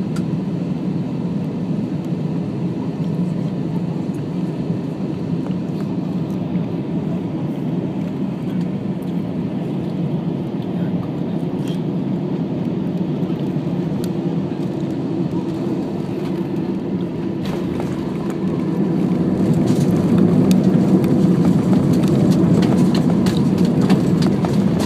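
Airbus A320 cabin noise beside the wing: steady jet engine and airflow rumble on final approach. About 18 seconds in it grows louder as the airliner touches down and rolls out with its spoilers raised.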